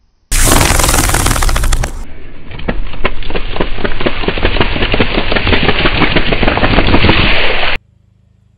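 A car tyre rolling over a row of juice-box cartons, bursting them one after another in a rapid, dense run of pops and crackles. It is preceded by about a second and a half of loud crackling crushing noise, and it cuts off sharply near the end.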